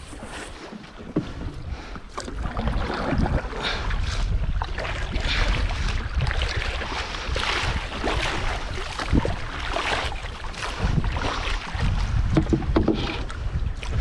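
Water splashing and sloshing around a small wooden paddled boat, with a few knocks, under heavy wind rumble on the microphone that picks up about two seconds in.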